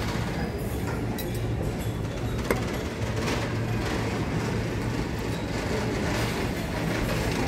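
Steady low hum and murmur of a busy restaurant dining room, with a single light clink of cutlery about two and a half seconds in.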